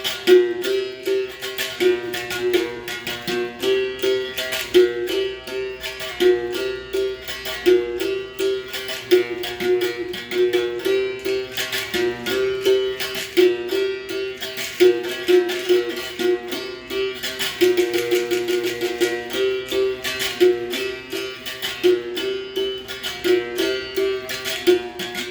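Capoeira berimbau played in a steady run of quick strikes on its wire, the note switching back and forth between a couple of pitches.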